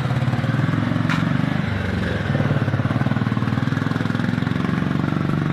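A small engine idling steadily, its pitch dipping briefly and recovering about two seconds in, with a single light click about a second in.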